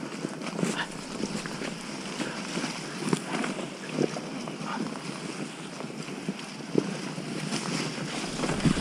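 Wind noise on a helmet camera's microphone as an enduro motorcycle rolls down a leaf-covered forest trail, with scattered knocks and rustles from the tyres over the ground.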